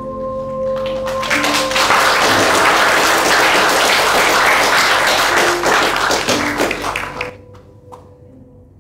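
A sustained music chord fades out in the first second or so, overlapped by an audience applauding. The clapping runs loud for several seconds and breaks off suddenly about seven seconds in, leaving a faint held tone.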